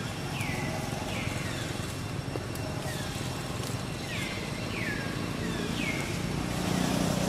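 Short, high calls, each sliding down in pitch, repeated about once a second by an animal, over a low steady rumble.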